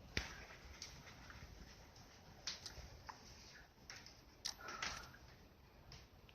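Cinnamon Java sparrow giving faint, scattered sharp clicks and a few short chirps, with a brief louder burst of notes just before five seconds in.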